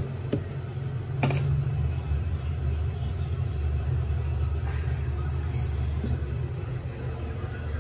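A steady low rumble, with a couple of light knocks near the start like a metal pot being handled.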